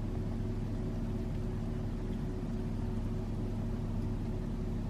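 Car engine running with a steady low drone, heard from inside the cabin.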